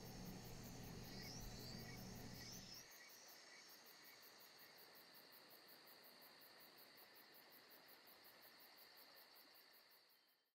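Faint insect chirring, cricket-like: a steady high trill with a quick, even pulse. A low hum underneath stops about three seconds in, and the chirring fades out at the very end.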